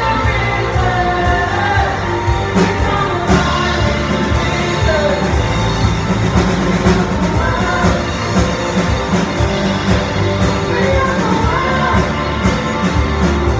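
Live worship band playing: several women singing into microphones over electric guitar, bass guitar and a drum kit keeping a steady beat.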